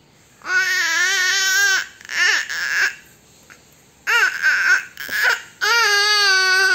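Four-month-old baby girl cooing and babbling in long drawn-out vowel sounds. A long held coo comes about half a second in and another near the end, with a few shorter calls between them and brief pauses.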